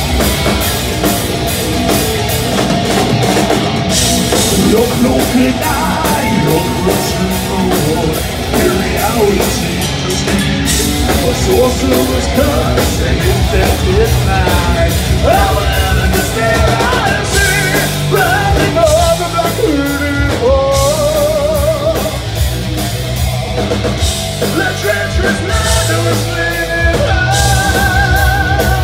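Heavy metal band playing live: electric guitars and a drum kit keeping a driving beat, with a singer's voice. In the second half a held melody line wavers in pitch over the band.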